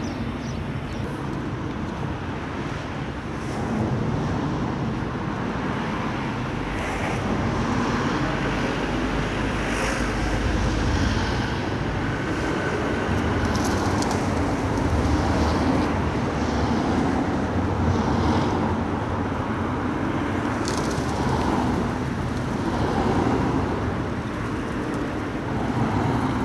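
Steady outdoor street noise with road traffic passing, and a few faint clicks.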